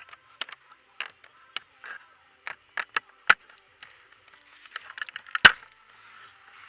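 Irregular clicks and knocks from working at the brake pedal and its light switch, the switch being moved and the pedal pressed, with a sharper knock in the middle and the loudest one near the end.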